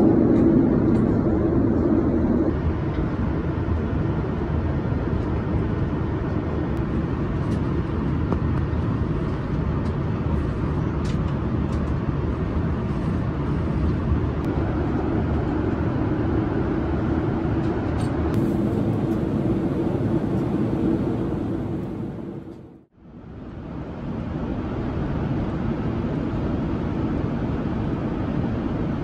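Steady cabin noise of a Boeing 787-9 in cruise flight, the even rush of airflow and engines. It drops away briefly about three-quarters of the way through and comes back.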